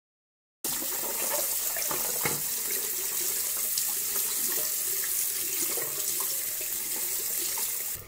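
Water tap running into a sink, a steady hiss of water for rinsing after brushing teeth. It starts abruptly about half a second in and stops near the end.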